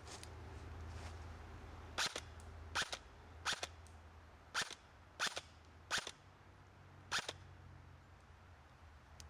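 Airsoft gun firing single shots: seven sharp pops at uneven spacing over about five seconds, starting about two seconds in.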